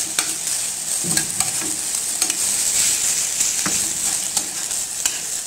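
Chicken breast strips and sliced mushrooms sizzling in butter and oil in a nonstick frying pan, with a steady hiss, while being stirred. The stirring utensil clicks and scrapes against the pan now and then.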